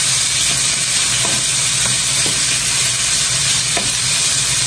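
Pieces of meat sizzling steadily in hot oil in a nonstick pan, sautéing as they are stirred and turned with a wooden spatula, with a few light taps of the spatula.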